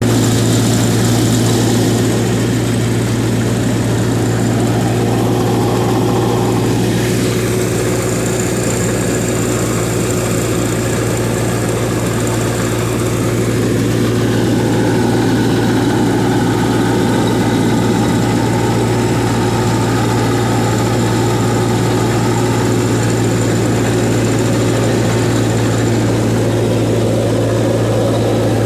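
1949 Ferguson TO-20 tractor's four-cylinder Continental engine running steadily at a constant speed while pulling a loaded hayrack wagon, heard close up from the driver's seat.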